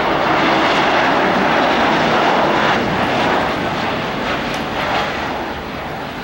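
Boeing 787-9 airliner's GEnx turbofan engines rushing as the jet passes low and lands, loudest in the first three seconds and then fading as it rolls away down the runway.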